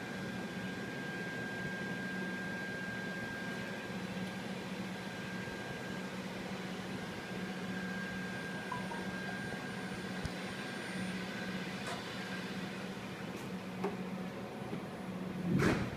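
Steady machine hum: a low drone with a thin high whine over an even hiss. A short, sharp knock-like sound comes near the end and is the loudest thing.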